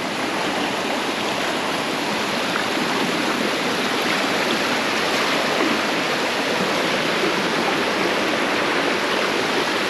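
Steady rush of water pouring down a waterfall and over its rocks, a dense, even noise with no let-up.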